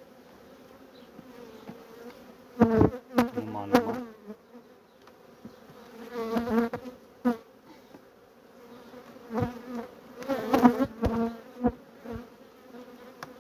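Honey bees buzzing over an open hive: a steady hum, with louder wavering swells as bees fly close. Several sharp wooden cracks and knocks come as a division board glued down with propolis is worked loose from the hive body.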